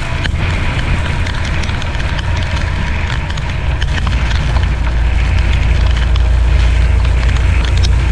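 Inside a semi-truck's cab at highway speed in the rain: a steady low drone of engine and tyres that grows a little louder about halfway through, with scattered small ticks of raindrops hitting the windshield.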